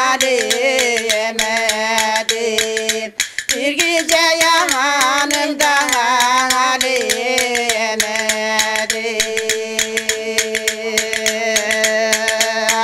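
Women singing a Turkish folk song (türkü) in long, wavering held notes, with a brief break about three seconds in, while two metal tea saucers are clacked together in the hand as percussion, giving a steady run of sharp clicks.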